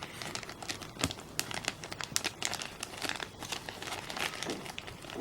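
Thin plastic packaging film crinkling and rustling in irregular crackles as it is handled and pulled apart to free a cloth accessory.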